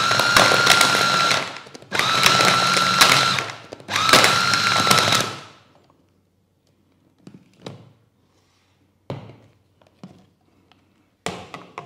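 Electric food chopper run in three pulses of about a second and a half each, a steady motor whine over the churning of a ground Spanish mackerel fish-ball mixture. After that come a few clunks as the motor head is lifted off the bowl and set down on the table.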